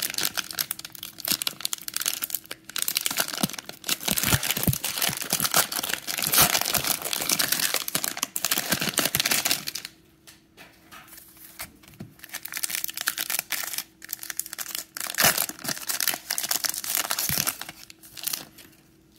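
Plastic trading-card pack wrappers being torn open and crumpled in the hands. There is dense crinkling for about the first ten seconds, then quieter, scattered crinkles over a faint steady hum.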